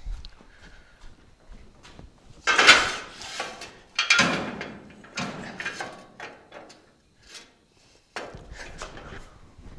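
Steel jack stands clanking and clattering as they are set down on the concrete floor and worked into place under the car's frame: four loud metal clatters, the loudest about two and a half seconds in, with smaller knocks between.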